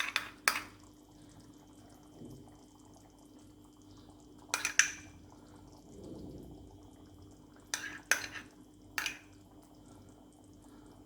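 Metal spoon clinking and scraping against a pan and cream container as fresh cream is added to a simmering gravy. Short clusters of sharp clinks come at the start, a little before halfway and twice near the end, over a faint steady hum.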